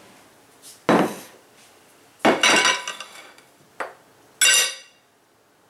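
A metal fork clattering and scraping against a plate, four times, the last clink ringing briefly.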